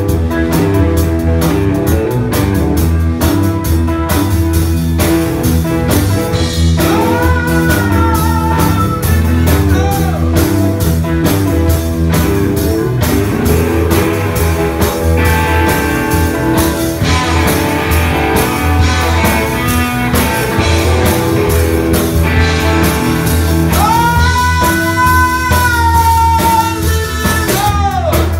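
Blues-rock band playing live: electric guitar over bass guitar and drums. Two long held high notes swell in and drop away at their ends, one about a quarter of the way through and a longer one near the end.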